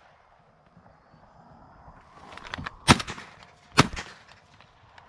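Two shotgun shots a little under a second apart, about three seconds in, fired at passing doves. Fainter sharp cracks come just before them.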